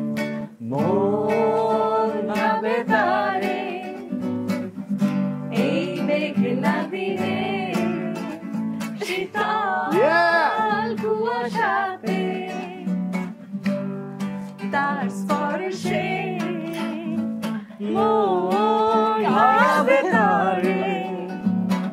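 Nylon-string acoustic guitar strummed as accompaniment to a voice singing long, wavering held notes.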